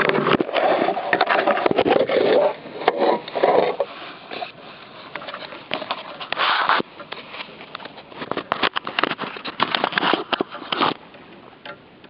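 A dense, irregular run of clicks, knocks and scrapes, louder in the first four seconds and again about six and a half seconds in, ending abruptly.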